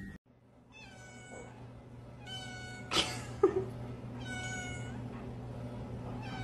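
Kitten meowing four times, short calls about two seconds apart, over a low steady hum, with a sharp tap about three seconds in.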